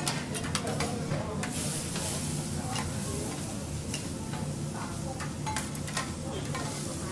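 Metal spatulas clinking and scraping on a hot steel teppanyaki griddle in a dozen or so irregular sharp clicks, over a steady sizzle of food frying on the plate.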